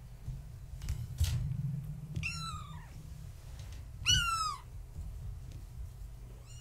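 Kitten meowing twice, two short high-pitched calls that fall in pitch about two seconds apart, the second louder. A short knock comes about a second in, over a steady low hum.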